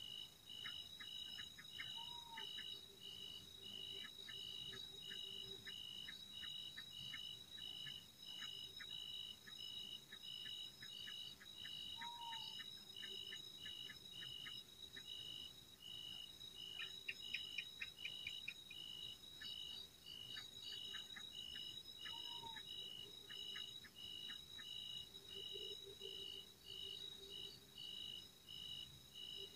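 A night insect chorus with a steady, evenly pulsing high trill, over which come repeated runs of rapid chirping clicks, a gecko-like call that sounds a bit different from a house gecko's. A short whistle-like note sounds three times, about ten seconds apart.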